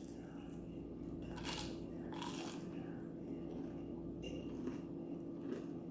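Close-up eating of Popeyes fried chicken wings: a few scattered crisp crunches and bites with chewing in between, over a steady low hum.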